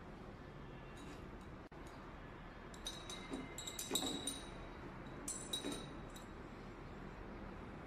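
Laboratory glassware clinking: a pipette and conical flask knocking lightly together in two short clusters of clinks, around three to four seconds in and again about five and a half seconds in, after a few faint ticks about a second in.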